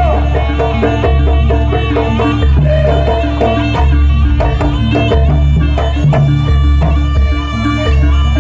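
Loud traditional Javanese jaranan dance music: drums and sustained melodic instruments over a deep low note that returns about every second and a quarter.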